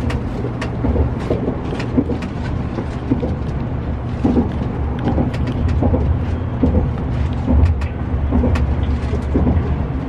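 Cabin noise of a 700 series Shinkansen train running: a steady low rumble with irregular light clicks and knocks.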